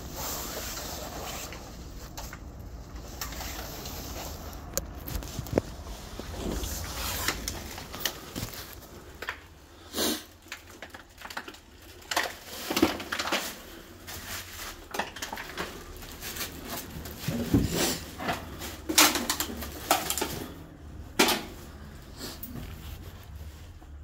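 Scuffing, scraping and rustling of a person clambering through a narrow gap into a brick-and-concrete shelter, then many irregular sharp knocks and clicks as they move over debris and handle the phone.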